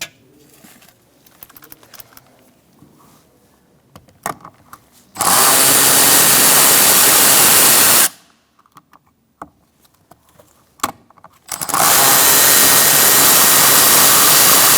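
Power tool with a 7mm socket spinning out two door-panel bolts: two steady runs of about three and four seconds, one per bolt, with a few light clicks of the socket being fitted before the first.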